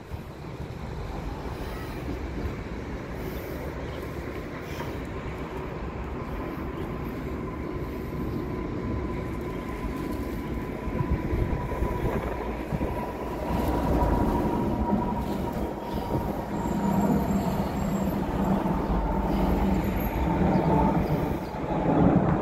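Translohr rubber-tyred tram standing at a stop: a steady hum and rumble from its onboard equipment, with a faint steady whine, growing louder in the second half.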